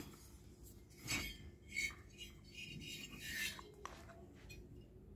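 Metal cylinder barrel of a Yamaha RX100 cylinder kit being handled: a few short scrapes and rubs, the loudest about a second in and just before two seconds, with more rubbing around three and a half seconds.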